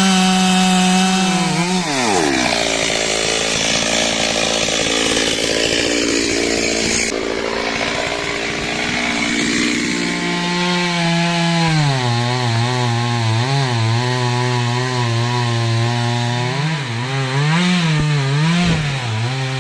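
Stihl two-stroke chainsaw running at high revs, dropping off about two seconds in, followed by a stretch of noisier running. Around halfway the engine picks up again and settles at a lower, wavering speed, with several quick throttle blips near the end.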